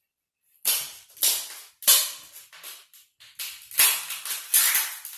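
Baked king crab leg shell cracking and crunching in a quick, irregular run of sharp crackles, starting about half a second in.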